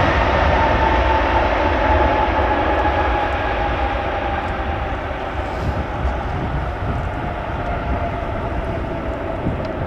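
Airbus Beluga XL's two Rolls-Royce Trent 700 turbofans running at low thrust as it taxis, a steady jet whine over a low rumble, the whine slowly falling in pitch and the sound easing off a little.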